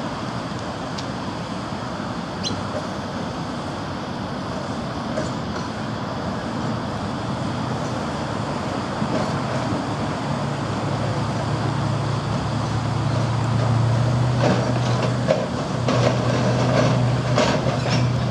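Vintage electric tram approaching slowly on street track, its low running drone growing louder as it nears. Several clicks and knocks come from the wheels on the rails in the last few seconds.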